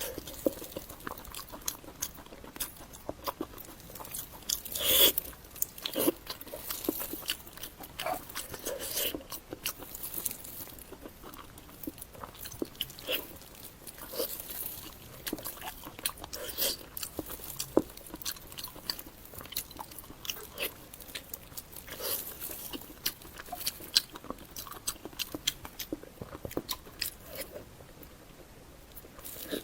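Close-miked eating: a person biting and chewing crunchy food, with irregular sharp crunches and mouth clicks, loudest about five seconds in.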